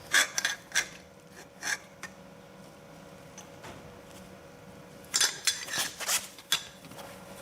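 Steel hand tools clinking and knocking against metal while a seized bolt is being worked: a few sharp clinks in the first two seconds, then a quick cluster of them about five seconds in.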